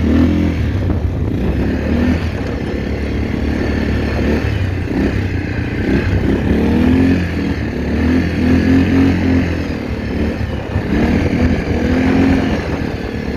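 ATV (quad bike) engine running continuously under load, its pitch rising and falling several times as it is throttled up and down while driving up sand dunes.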